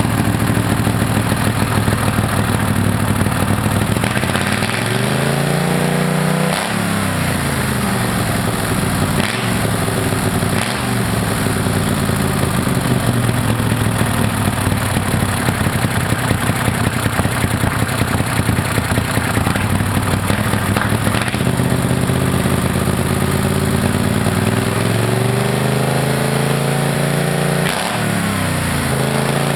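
Mud Buddy 35 hp mud motor's air-cooled twin-cylinder engine running and being revved. It climbs in pitch and drops sharply about six seconds in, gives a couple of short blips, then makes a long slow climb in the second half that falls away and picks up again near the end.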